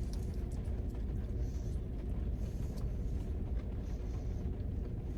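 Steady low rumble inside a car's cabin, with a faint steady hum and a few faint clicks.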